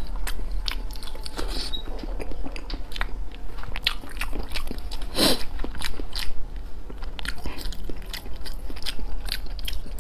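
Close-miked chewing of fatty red-braised pork belly: a steady run of short, wet mouth clicks, with one louder one about five seconds in.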